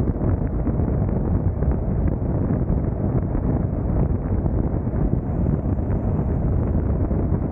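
Car travelling at freeway speed: a steady rush of wind buffeting the microphone mixed with tyre and road noise.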